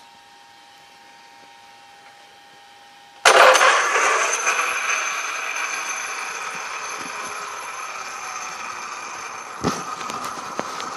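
An electric motor starts abruptly about three seconds in and keeps running with a steady high whine and mechanical noise. There is a single knock near the end.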